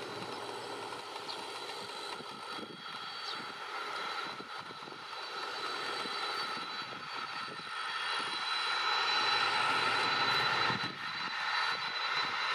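Boeing 767-300ER's twin turbofan engines running at low power as the jet rolls past close by: a steady high whine over a broad engine rush, growing louder over the last few seconds.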